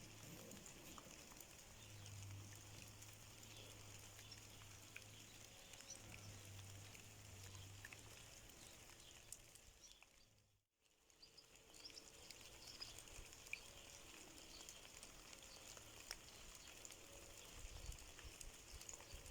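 Faint outdoor ambience: a steady soft hiss of light rain with a few faint, distant bird chirps. The sound cuts out for a moment about halfway through.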